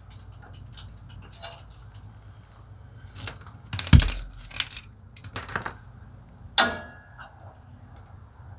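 Small metal parts and hand tools clinking and clattering as parking brake hardware is handled, with a run of sharp clicks a few seconds in and one ringing metallic click near the end.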